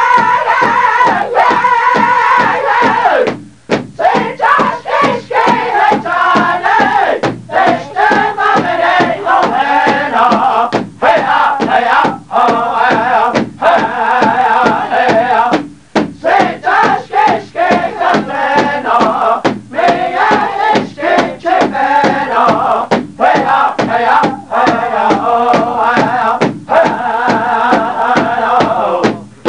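A group of voices chanting together in a high, wavering unison over a steady, evenly struck drum beat, with short breaks between phrases about three and a half seconds in and again past the middle.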